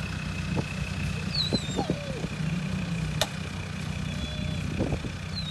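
Low, steady engine rumble of a Land Rover Discovery crawling slowly up a sandy bank. Birds chirp briefly over it, and there is a single click about three seconds in.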